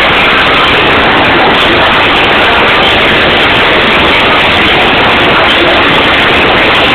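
Loud live hardcore band heard through an overloaded microphone: a dense, distorted wall of sound at a constant level, with no separate notes or beats standing out.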